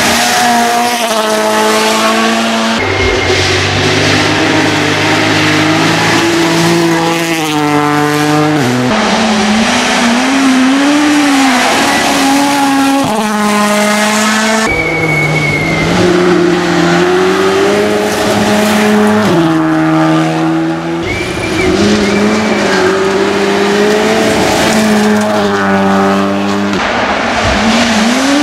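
WRC Rally1 cars, a Toyota GR Yaris and a Ford Puma among them, driven flat out on a gravel stage: their turbocharged 1.6-litre four-cylinder engines rev up and drop with quick gear changes as each car passes. Several separate passes follow one another, each cut off abruptly by the next.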